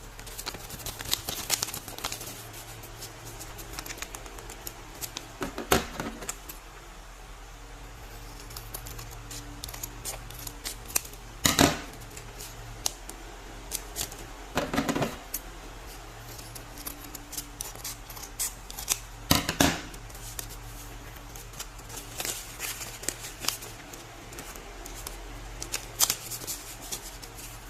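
Paper packaging being handled and opened by hand: scattered crinkling and rustling, with about five louder sharp crackles spread through, over a steady low hum.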